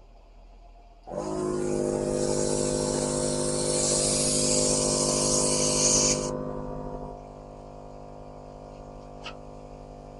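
Maddox air compressor starting up about a second in and running steadily, with a loud air hiss at the chuck that stops about six seconds in as the Chuck Mates quick-connect is locked onto the tyre valve. The motor keeps running, quieter, pumping air into the tyre.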